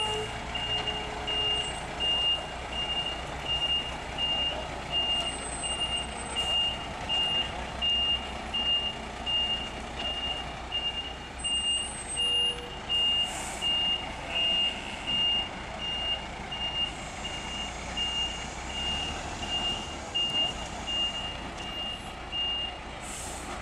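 Backup alarm on a military heavy-haul truck beeping steadily, about two beeps a second, over the truck's engine running; the beeping stops near the end.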